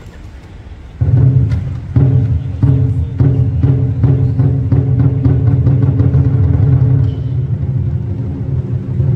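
Lion dance percussion accompaniment (big lion drum with cymbals and gong) comes in loudly about a second in and keeps up a steady, driving beat of strikes with ringing metal over the drum.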